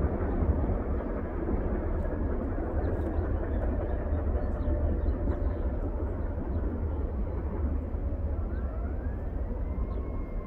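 Steady rumble of a freight train rolling away into the distance, with wind buffeting the microphone. Faint rising tones come in near the end.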